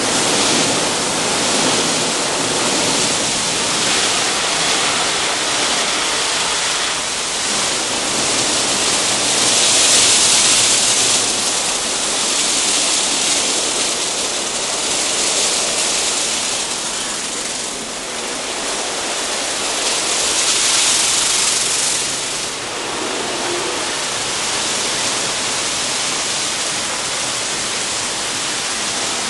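WashTec SoftWash car-wash gantry at work: water spraying and the rotating brushes sweeping over the car make a loud, steady rushing hiss. The hiss swells several times.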